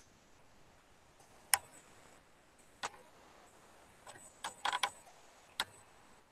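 Computer mouse clicking: single sharp clicks a second or so apart, with a quick run of several clicks about four and a half seconds in.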